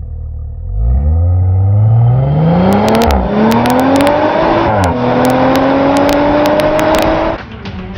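2018 Audi RS5's twin-turbo V6 accelerating hard from a standstill. The engine note climbs steadily, dips at two quick upshifts (first to second about three seconds in, second to third about two seconds later) and climbs again in third, with sharp crackles over the top. It cuts off near the end.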